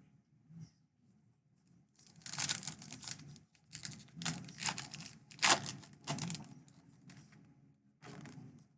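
A foil trading-card pack wrapper being torn open and crinkled: a long run of dense crackling from about two seconds in, then a shorter crinkle near the end.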